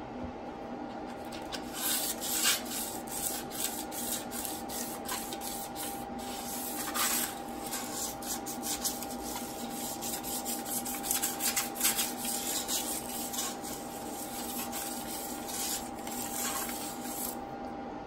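Cured epoxy resin on an MDF heart being hand-sanded: quick, irregular scratchy back-and-forth rubbing strokes, which start about a second and a half in and stop just before the end. The light sanding scuffs the cured resin so that the next resin coat has something to grip.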